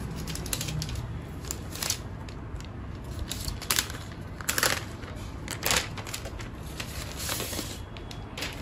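Protective wrap being peeled off a new laptop: crinkling and rustling of the sheet, with several sharp tearing rustles, loudest around the middle.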